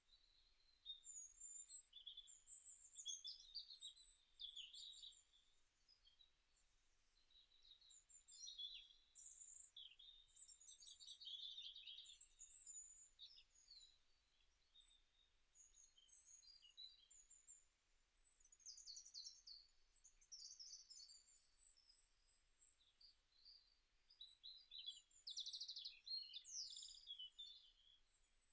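Faint birdsong: many small birds chirping and trilling, in bursts that come and go.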